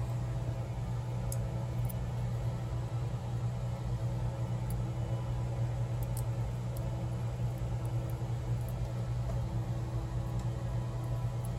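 A steady low mechanical hum, with a few faint, sharp clicks of small metal lock parts and tools being handled.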